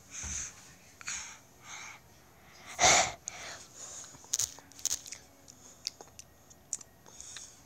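A young child's breathy puffs and exhalations right against a phone microphone, with one loud, forceful sneeze-like burst about three seconds in. Scattered sharp clicks in the second half as the phone is handled.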